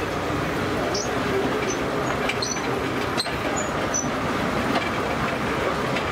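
Steam-powered sawmill machinery running: a steady rumble and clatter with brief high squeaks and clicks now and then.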